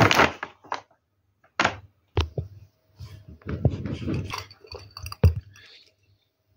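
Handling noises on a table: a few separate knocks and thunks as a glass of iced juice is handled, with a rustling stretch in the middle and the sharpest knock about five seconds in.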